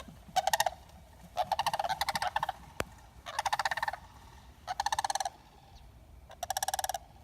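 Sandhill cranes calling: five rolling, rattling calls in quick bursts, each under about a second long.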